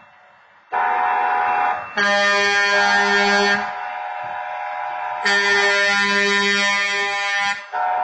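Two long blasts from the onboard horn of a Herzog rail maintenance vehicle leading a train, sounded for a road crossing. Under and between them the crossing's wayside horn gives a steady, higher horn tone, which cuts out at the start and resumes under a second in.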